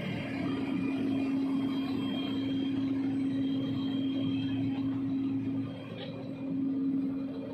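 Articulated dump truck's diesel engine idling steadily, with a constant hum over the engine noise.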